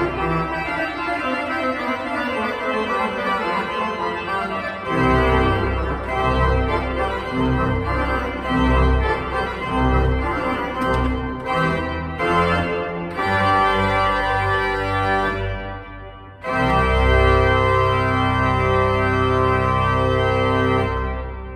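Pipe organ playing full sustained chords, with deep bass notes joining about five seconds in. After a brief break about sixteen seconds in comes a loud held chord, released near the end and ringing on in the church.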